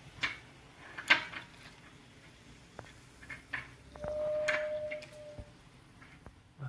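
Light clicks and knocks as a small drinking glass is handled at a plastic soda-bottle dispenser tap over a glass tabletop, with a steady tone starting about four seconds in and lasting about a second and a half.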